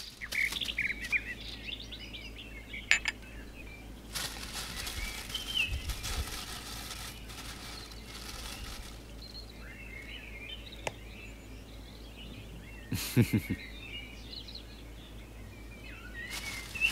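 Small birds chirping on and off in the background. A soft rustling hiss runs through the middle, and there are a couple of short knocks late on.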